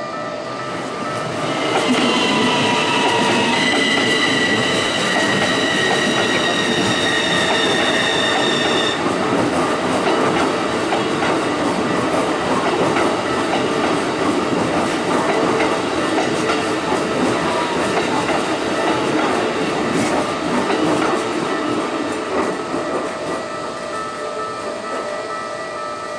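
Keikyu electric commuter train passing over a level crossing on a sharp curve. Its wheels squeal on the curve with several high, slowly falling tones for the first several seconds, then the train rumbles and clatters over the rails and crossing, easing off near the end. A level crossing bell rings steadily throughout.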